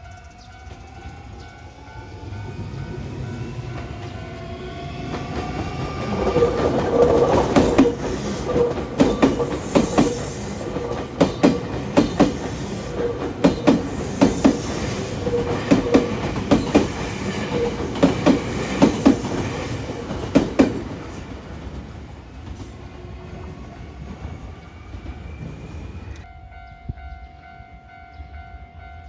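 A Nankai electric train passes over a level crossing. Its motor whine rises in pitch as it approaches. Then, for about fifteen seconds, loud rhythmic clatter of wheels over the rail joints, often in pairs, before the train fades away. The crossing's warning bell rings steadily throughout.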